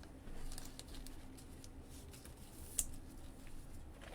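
Faint handling noise of trading cards and their packaging: small scattered clicks and rustles, with one sharper click about three seconds in.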